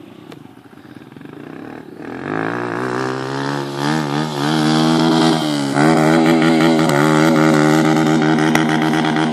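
Dirt bike engine running at speed, getting much louder about two seconds in. The pitch dips briefly a couple of times as the throttle changes, then the note holds steady and loud.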